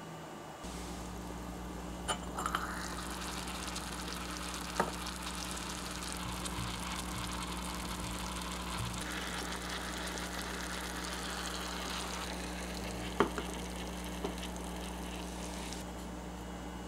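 Small pot of cabbage consommé soup simmering on a miniature stove with a steady sizzle, broken by a few sharp clicks and pops, over a low steady hum. The sizzle stops near the end.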